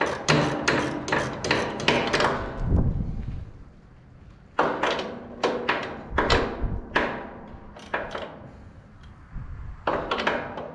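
Repeated sharp metal-on-metal clanks with a short ringing tone, about two or three a second, in three runs with pauses between: hand tools striking steel parts of the Case 8840 windrower during repair.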